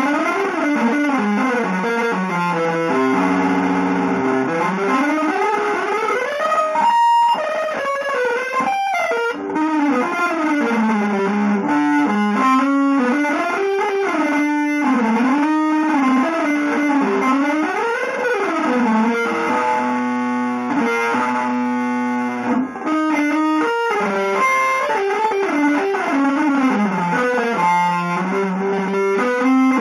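Electric guitar playing a continuous solo line whose notes slide up and down in pitch, with a held chord about two-thirds of the way through.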